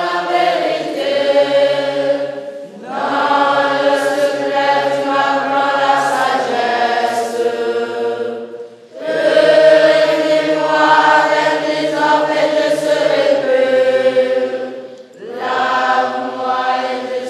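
Choir of young male seminarians singing a hymn together in long sustained phrases, with short breaks between phrases about 3, 9 and 15 seconds in.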